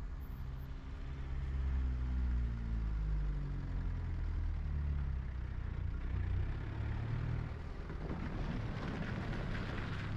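Motor vehicle engine running close by, its low hum slowly falling in pitch over several seconds. From about eight seconds in, a rougher hiss with crackles takes over.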